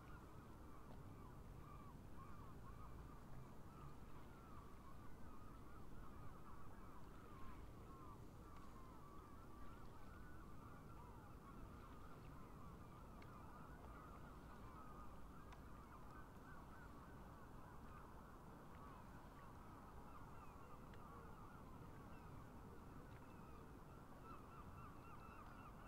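A large flock of geese honking, many faint calls overlapping into a continuous chatter, over a low rumble.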